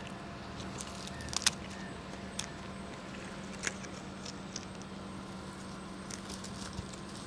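Scattered light clicks and taps from hands-on handling work, with a sharp double click about a second and a half in, over a steady low hum.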